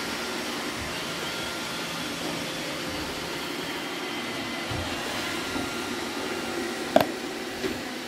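Robot vacuum cleaners running with a steady whir. About seven seconds in comes a sharp plastic click, then a lighter one, as a robot vacuum's confetti-filled dustbin is handled.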